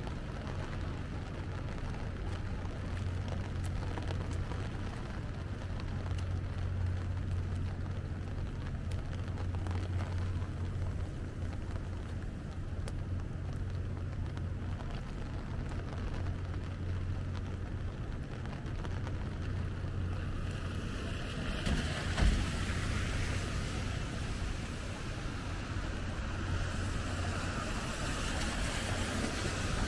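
Rainy city street: a steady low rumble of traffic, joined from about two-thirds of the way in by a rising hiss of tyres on wet pavement, with one short thump just after it begins.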